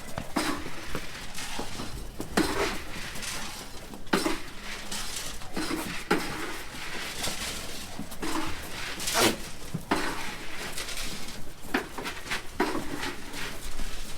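Alpacas feeding from a bucket of feed: irregular knocks, clinks and rattles, a sharp one every second or so.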